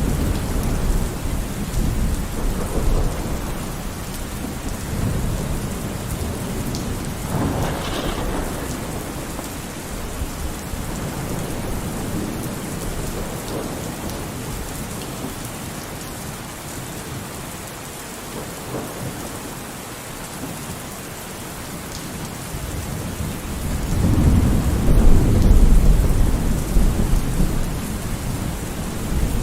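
Thunderstorm: steady rain with rolling thunder, a louder rumble of thunder swelling about three-quarters of the way through.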